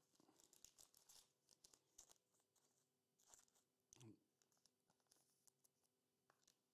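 Faint rustling and small clicks of trading cards being handled and slid through the fingers, with one soft thump about four seconds in.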